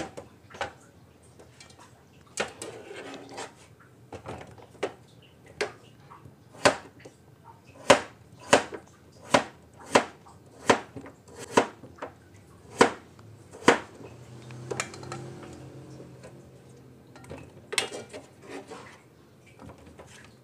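Kitchen knife slicing potato thin on a plastic cutting board: sharp knocks of the blade hitting the board, a few scattered at first, then a steady run of about one every two-thirds of a second through the middle, and a few more near the end.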